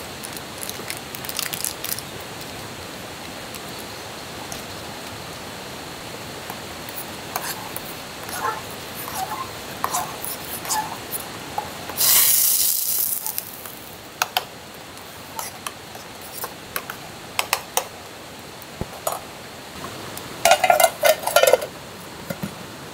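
Metal camp cookware and utensils clinking and scraping in scattered knocks, with a cluster of louder ringing clinks near the end. About twelve seconds in, a loud hiss lasts roughly two seconds.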